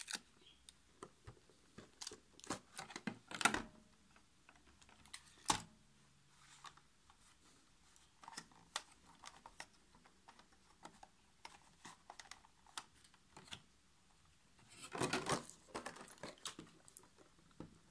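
A hair clipper's clear hard plastic case being handled and opened: a scattered run of sharp plastic clicks and taps, with brief rustling scrapes about three seconds in and again near the end.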